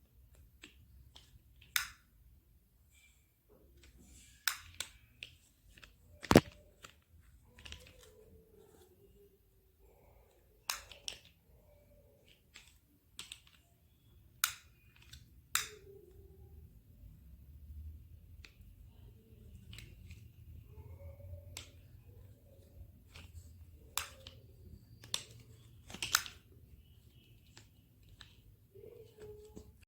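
A baby making sharp clicking sounds with the mouth: about fifteen irregularly spaced clicks, the loudest about six seconds in, with soft little vocal sounds between them.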